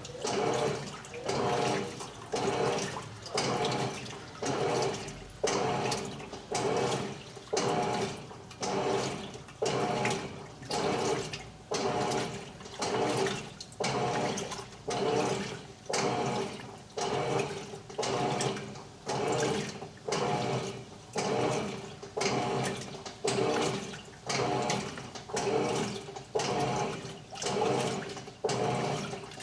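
Electrolux LTE12 Turbo Economia top-loading washing machine agitating a load: water and clothes sloshing in regular surges, about one a second, as the agitator swings back and forth.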